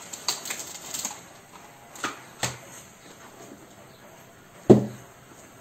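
Hands rummaging through craft supplies on a desk: scattered light clicks and taps of paper and small objects being handled. One louder knock comes near the end.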